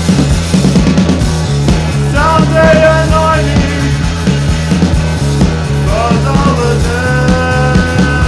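Early-1980s rock band recording playing: a steady pulsing bass line and drums, with a higher melodic line coming in over them twice.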